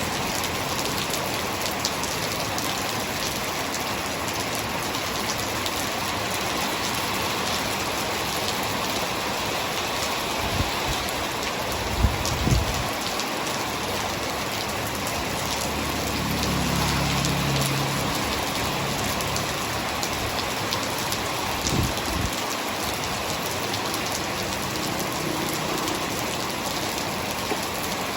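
Hard rain falling in a steady, even hiss. A few louder dull knocks come about a third of the way in and again around three-quarters, and a low rumble swells briefly in the middle.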